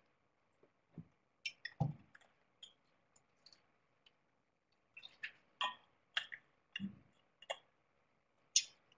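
Faint, irregular clicks and light taps, about a dozen spread over several seconds, from computer keyboards and mice being worked during a search exercise.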